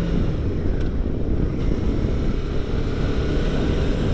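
Motorcycle engine running steadily on the road, under a dense low rumble of wind and road noise.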